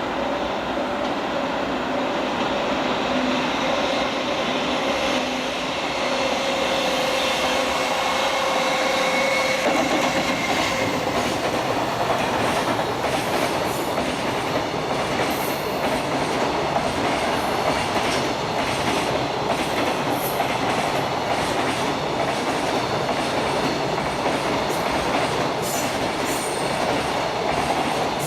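High-speed freight train running through a station without stopping. Steady humming tones sound for the first ten seconds or so, then give way to a long stretch of wagon wheels clattering over the rail joints.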